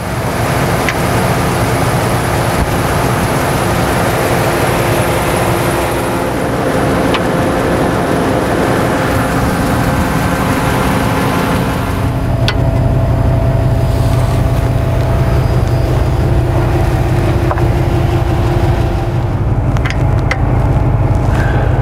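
Steady motor-vehicle noise: an engine running with a continuous hum, a few sharp clicks, and a deeper, heavier sound from about halfway through.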